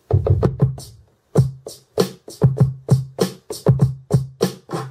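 Drum samples from a freshly built kit of kicks, snares, shakers and bongos, finger-drummed on a Native Instruments Maschine Mikro's pads and heard through speakers. They form a loose beat of short hits, deep kicks mixed with bright snare and shaker hits, a few a second, with a brief pause about a second in.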